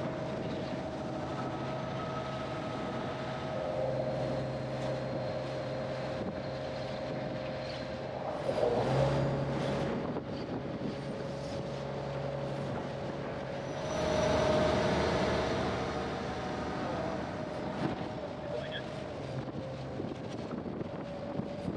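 River passenger boat's engine running steadily under way, with its pitch shifting slightly a few times, over the rush of water along the hull. The water noise swells twice, around a third of the way in and again past the middle.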